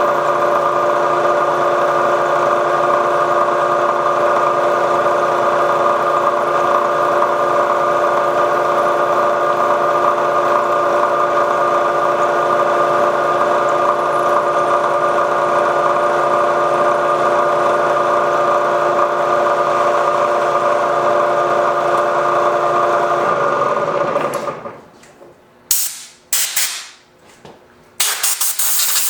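Milling machine running steadily with several fixed tones while an end mill cuts the extractor slot in a Sako rifle bolt. The spindle stops about 24 seconds in, followed by a few short hissing bursts and a longer hiss near the end.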